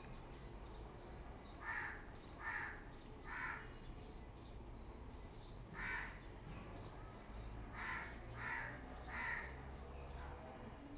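A crow cawing: three harsh caws in quick succession, a single caw a few seconds later, then three more. Small birds chirp faintly and steadily in the background.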